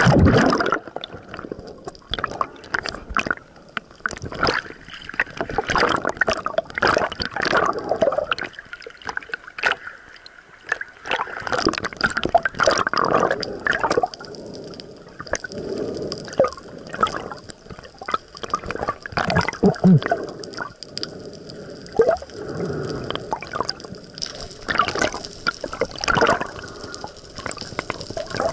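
Water sloshing and gurgling around an underwater camera moving just below the surface, in irregular splashy bursts, loudest at the very start.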